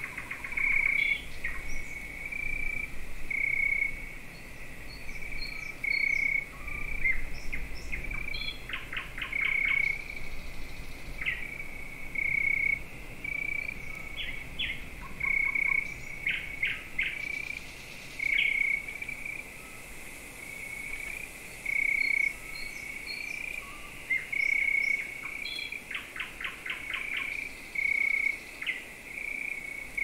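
Crickets chirping steadily in a high, slightly pulsing trill, with birds chirping now and then. Three times a short burst of rapid clicking calls stands out.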